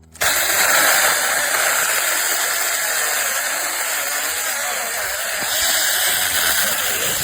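Tietoc 6-inch mini cordless electric chainsaw running and cutting into a small branch, starting suddenly and holding a steady high buzz. The chain binds in this branch.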